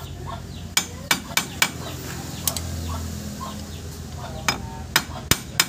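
Hammer striking a punch against the front hub's axle nut, putting its lock back in place: about nine sharp metal taps, a quick run of four about a second in, one more midway, and four more near the end.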